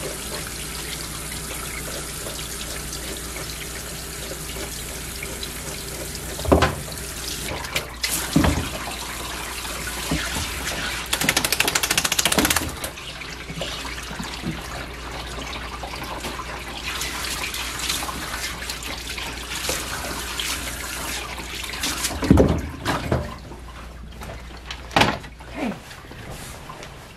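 Water running in a grooming bathtub, with a steady rushing hiss, broken by several knocks and thumps and a brief burst of rapid rattling about eleven seconds in.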